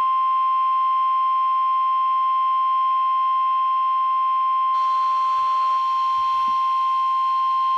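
NOAA Weather Radio warning alarm tone: a single steady, loud 1050 Hz beep held without a break. It signals that a warning message is about to be broadcast. A faint radio hiss rises behind it about five seconds in.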